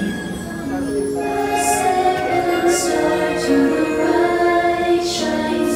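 Music with a woman singing long, held notes.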